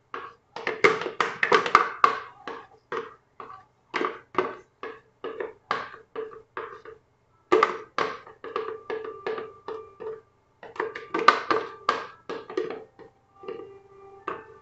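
A spatula knocking and scraping inside a plastic blender jar as thick corn cake batter is scraped out: an irregular run of short ringing knocks, several a second, broken by two brief pauses.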